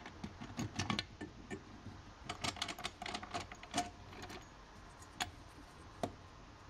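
Light clicks and taps of the two cast-aluminium halves of a Voskhod motorcycle engine's crankcase being fitted together by hand over the gearbox shafts, in quick clusters followed by two single taps near the end.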